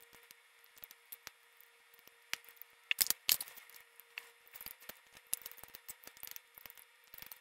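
Roasted chicken being pulled apart by hand: meat and skin tearing off the carcass in a run of small crackles and wet clicks, with a sharper cluster about three seconds in. Near the end, a piece is bitten into and chewed.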